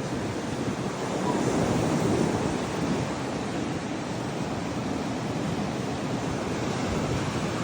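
Sea surf washing onto the shore in a steady rush of waves, swelling a little about two seconds in, with some wind on the microphone.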